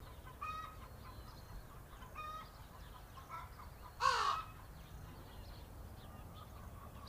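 A crow cawing a few times in short separate calls, low in level, with the loudest call about four seconds in.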